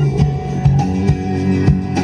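Guitar-led pop music with a steady drum beat, played on a car sound-quality stereo through its Bravox Diamond two-way front speakers.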